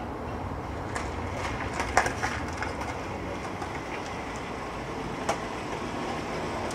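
Scattered sharp knocks over a steady low rumble, the loudest knock about two seconds in.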